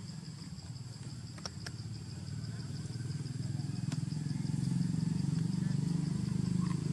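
An engine running, a low hum that grows louder from about halfway through, with a steady high insect buzz above it.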